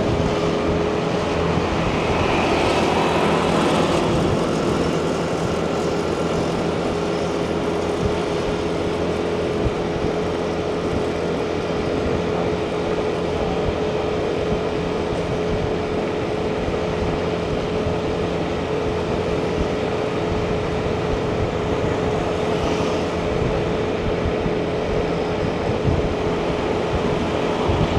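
Motorbike riding in city traffic: steady engine drone with wind and road noise and a constant high hum. A brief louder rush comes about three seconds in.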